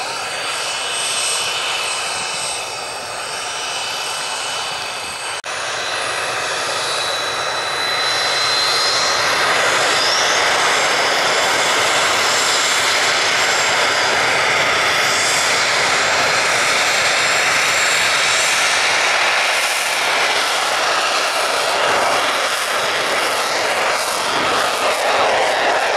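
Jet trainer's twin Honeywell F124 turbofans running with a high whine as it taxis, growing louder about eight seconds in and staying loud as it goes to takeoff power and rolls down the runway near the end.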